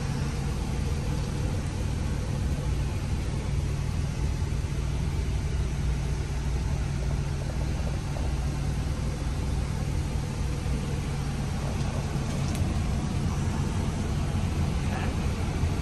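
Semi-truck's diesel engine idling, a steady low hum.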